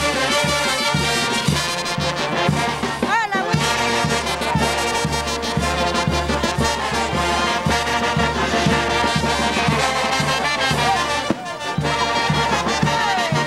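Brass band playing festive music, trumpets and trombones over a steady drum beat.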